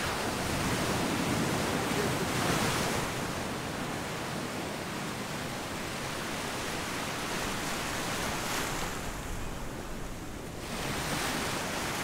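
Ocean surf: waves breaking and washing up on a sandy beach, a steady rush that swells louder about two seconds in and again near the end.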